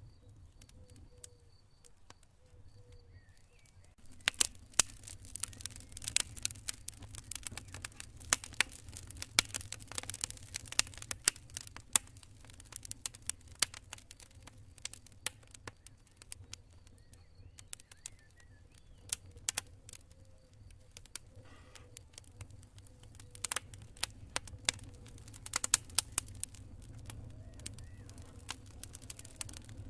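Campfire crackling and popping, the pops thick and sharp from about four seconds in, over a low steady rumble. Crickets chirp faintly at the start and again around the middle.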